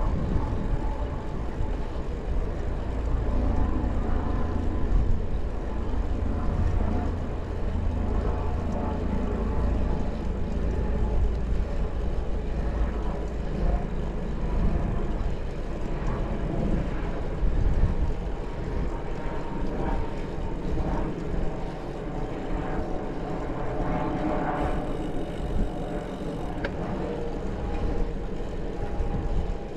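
Steady wind rumble on the microphone of a moving bicycle, with faint wavering tones in the middle range.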